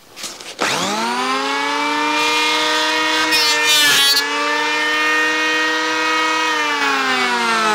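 Bosch POH 15-82 electric hand planer motor starting and running up to a steady high whine, with a short rasping cut about three and a half seconds in as the blades take a pass over wood, the pitch sagging briefly under the load. Near the end it starts to wind down, its pitch slowly falling.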